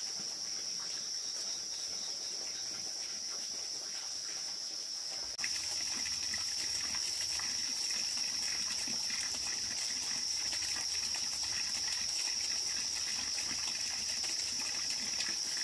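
Night insects, crickets, trilling in a steady high-pitched chorus that jumps louder about five seconds in.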